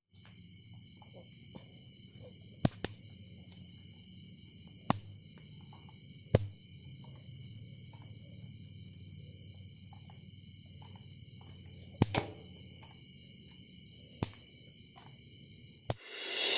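Electric mosquito racket zapping insects: five sharp snaps, the second-to-last doubled, over a steady high-pitched pulsing chirr. Music starts right at the end.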